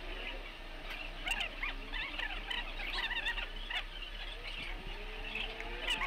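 Many quick, high chirping and squeaking calls from small animals, over a steady low hum.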